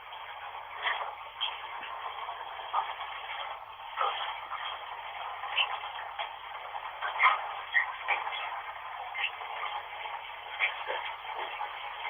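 Steady hiss of running bathwater, heard thin and narrow like sound through a radio or small speaker, with short faint blips scattered through it.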